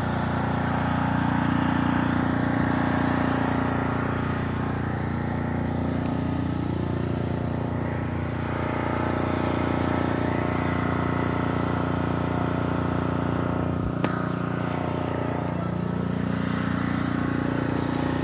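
An engine running continuously, its pitch slowly rising and falling a few times, with a single sharp knock about fourteen seconds in.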